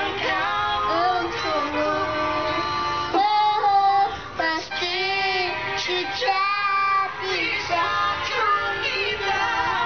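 A young girl singing into a hand-held microphone, holding long notes with a wavering vibrato.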